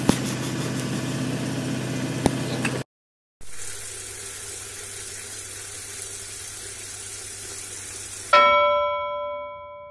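An engine runs steadily with a few clicks for the first three seconds, then after a short silence water runs steadily from a kitchen mixer tap into a sink, the water supply restored through the new pipe. Near the end a single bell-like ding rings out and fades.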